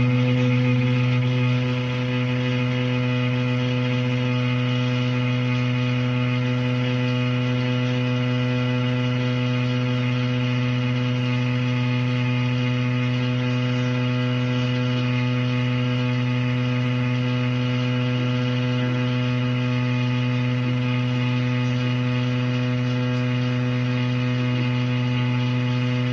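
Shower plumbing making a steady droning hum: one low pitch with a stack of overtones, holding level throughout apart from a slight dip about two seconds in. The cause is unknown to the owner.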